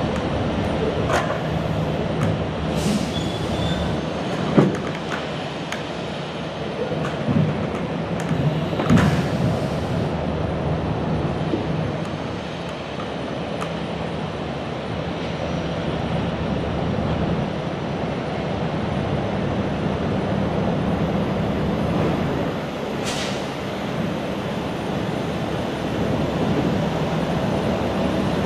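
Diesel semi-truck running while creeping at low speed: a steady engine drone with road and chassis noise, broken by a few sharp clanks and rattles, the loudest about four and a half and nine seconds in, another near the end.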